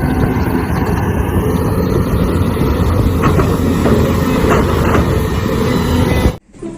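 Loud rumbling, rattling machinery sound of a toy bulldozer, starting suddenly and cutting off abruptly a little over six seconds in.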